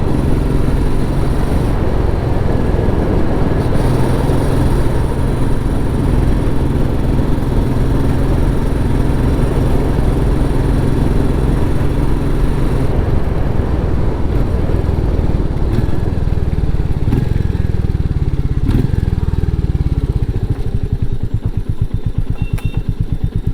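Royal Enfield Meteor 350's single-cylinder engine running through its stock exhaust while riding, then easing off about halfway through. Near the end it slows to separate, evenly spaced exhaust beats as it settles toward idle.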